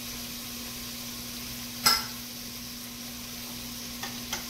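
Chopped vegetables sizzling steadily in an enameled cast-iron Dutch oven over a gas burner, with one sharp knock about two seconds in and two fainter clicks near the end.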